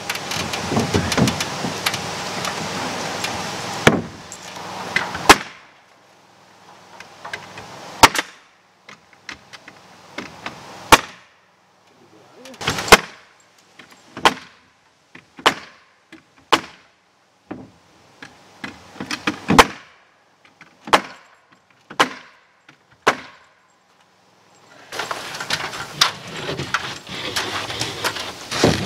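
Pneumatic nail gun driving nails through OSB wall sheathing into the framing: about a dozen single sharp shots, one every second or two, after a few seconds of steady background noise.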